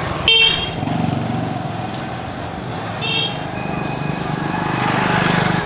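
A motor vehicle engine running and growing louder near the end, with two short horn toots about three seconds apart.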